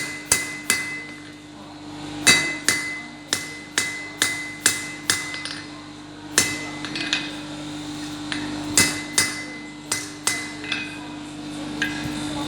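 Hand hammer striking a red-hot scarf weld of two iron bars on an anvil, in runs of ringing blows about three a second with short pauses between runs. A steady low hum runs underneath.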